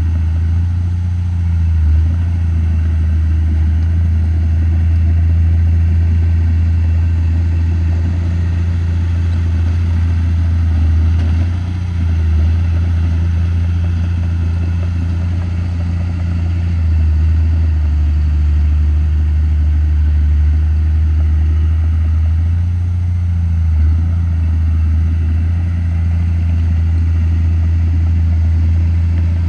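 Komatsu D31P crawler bulldozer's diesel engine running steadily with a deep, loud drone, its low note shifting a few times as the engine works.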